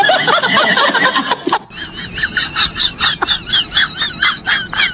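An animal calling: a quick series of short, high, wavering cries repeated about four or five times a second, after an abrupt change about a second and a half in.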